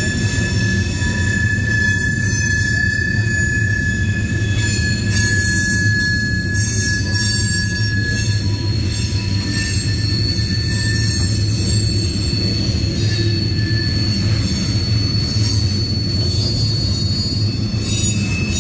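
CSX mixed freight train's tank cars and coil-steel cars rolling past with a steady low rumble of wheels on rail, overlaid by high-pitched wheel squeal. One squeal tone fades out about eight seconds in, while a higher one comes in around five seconds and holds.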